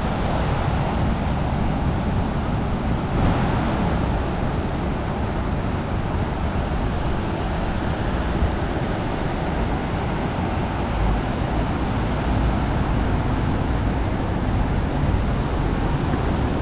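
Steady ocean surf washing onto the beach, with wind rumbling on the microphone.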